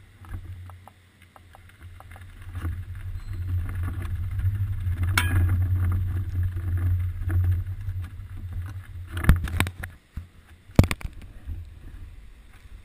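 Low rumble of a bicycle rolling over wet pavement, carried up through the seat-post camera mount; it swells in the middle and drops away about ten seconds in. A sharp knock comes about five seconds in, and two more near the end.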